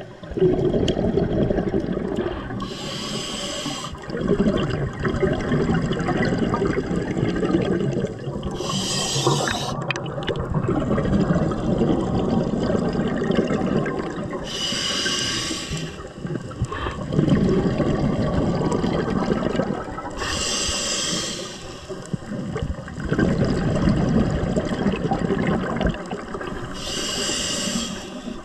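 Scuba regulator breathing underwater: a hissing inhale about every six seconds, five in all, with the bubbling of exhaled air between them.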